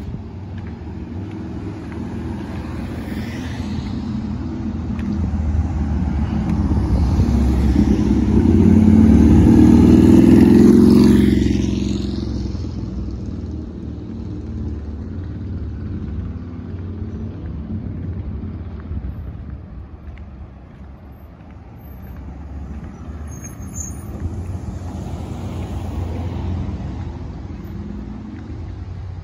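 A motor vehicle passing close by: its engine and tyre noise build up, peak about ten seconds in with a falling pitch as it goes past, then fade. A steady low rumble continues underneath.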